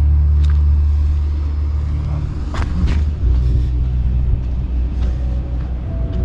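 Film soundtrack playing inside an inflatable cinema, heard from outside as a muffled deep rumble that drops a little about three seconds in, with faint music tones coming through near the end.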